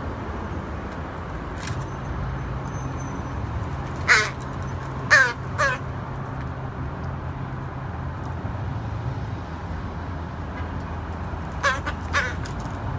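Crows cawing: three harsh caws a few seconds in, then two more near the end, over a steady low hum.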